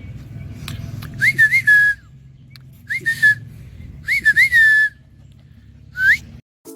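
A person whistling four short calls, each rising quickly and then settling on a held note, as if calling dogs. Under them is a steady low rumble, and the sound cuts off shortly before the end.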